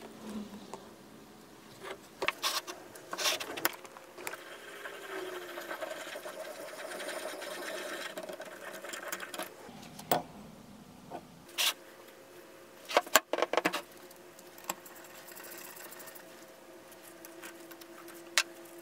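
Rusty cast-iron drill press vise being taken apart by hand: sharp metal knocks and clinks from a punch on the jaw pin, the lead screw and a wrench on a nut, between stretches of steady mechanical whirring.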